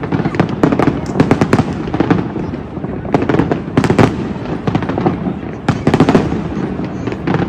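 Fireworks display fired from skyscraper rooftops: clusters of sharp bangs and crackling shell bursts, several a second at times, over a continuous rumble of the show.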